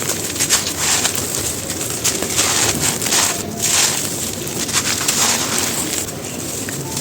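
Big, dry, gritty chunks of cement being crushed and crumbled, a dense run of crunches and crackles.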